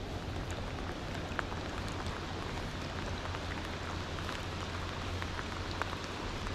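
Steady rain falling on the river's surface, a continuous hiss scattered with the faint ticks of single drops.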